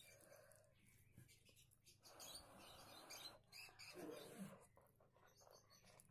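Faint sounds of eating rice and egg curry by hand: fingers mixing and squishing the rice on a plate and mouthfuls being chewed, with many small wet clicks.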